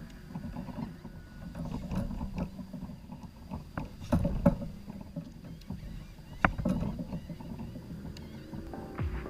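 Occasional knocks and clunks on a fishing kayak, over a low steady rumble, with the two loudest knocks about four and six and a half seconds in.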